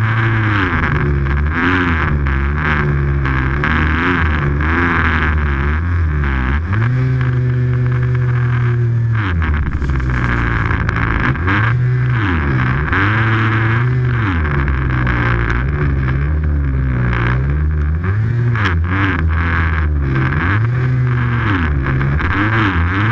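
Snowmobile engine revving up and down over and over as the sled rides through deep powder, holding a steady pitch for about two seconds around a third of the way in, with a steady hiss beneath.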